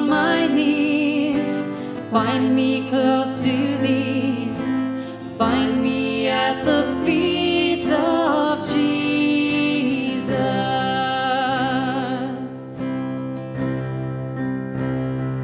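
A worship song: women's voices singing together over strummed acoustic guitar and piano. The singing stops about 13 seconds in, and the guitar and piano play on.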